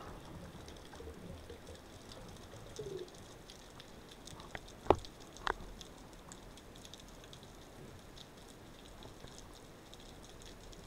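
Underwater sound picked up through a camera housing on a speargun: a faint steady crackle of small clicks, with two sharp clicks about five seconds in, the first much louder.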